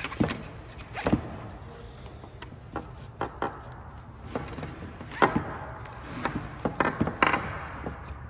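Nylon harness webbing being threaded and pulled through the slots of a strap clip: scattered clicks and knocks of the clip and hardware on a wooden table, with short rasping swishes of the strap sliding through, busiest a few seconds in, over a steady low hum.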